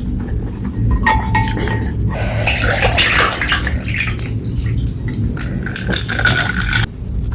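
Close-up eating sounds of instant noodle soup: wet slurps and sips of the broth, with light knocks of a utensil on the bowl.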